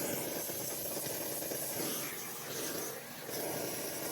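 Brazing torch flame hissing steadily while a refrigerant line joint is brazed.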